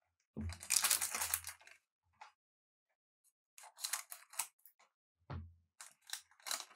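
Crinkling and tearing of a foil trading-card booster pack being opened by hand, with soft knocks from handling. It comes in three bursts: loudest about half a second in, again around the middle, and again near the end.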